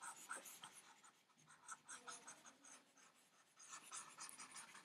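Faint scratching and tapping of a stylus on a tablet as handwriting is erased, in short irregular strokes that are busiest near the end.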